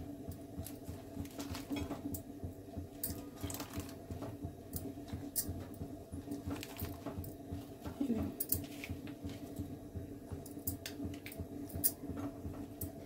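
Fresh whole spinach leaves being handled and put into a pot of water: soft rustling with scattered light clicks, over a steady low hum.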